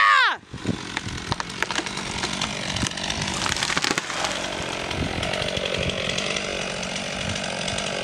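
A chainsaw revs briefly and cuts off, then the partly cut pine trunk cracks and snaps as a rope pulls it over, and its branches crash into the ground over the next few seconds. A steady rushing noise continues after the fall.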